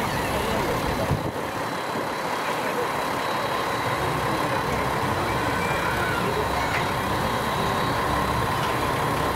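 Steady hiss and hum of steam locomotives standing in steam, with a faint steady whine running through it. A brief knock about a second in.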